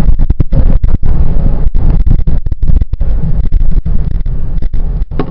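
Wind buffeting a microphone in a moving car: a loud low rumble with many brief dropouts.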